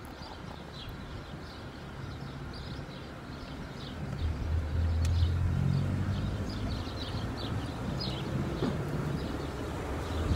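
Low rumble of wind and road noise from a moving car, growing louder about four seconds in as it picks up speed, with birds chirping over it throughout.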